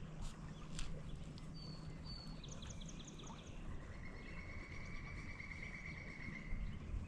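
Small songbirds singing over a steady rushing background: a couple of short high whistles, a quick run of rapid high notes, then a long buzzy trill held for nearly three seconds. Two sharp clicks come in the first second.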